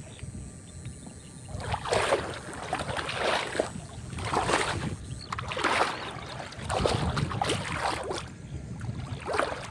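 Water splashing and sloshing in repeated swishes, about one a second, as it is pushed through in shallow water during electric fishing.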